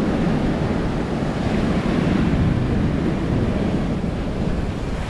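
Ocean surf washing onto the beach, a steady rush, with wind buffeting the microphone.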